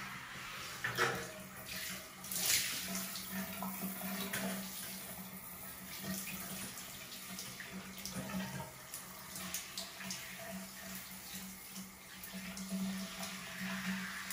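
Shower running, water spraying steadily onto tile, with a few louder splashes in the first few seconds.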